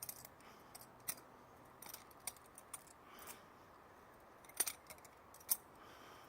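Butterfly knife being flipped: irregular metallic clicks and clacks as the handles swing and knock against the blade, the two loudest in the second half.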